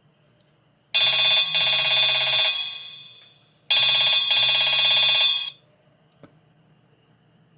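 A Nokia phone's loudspeaker playing a ringtone like an old telephone bell: two rings, each a short burst followed by a longer one, a little under three seconds apart. A faint click follows shortly after the second ring.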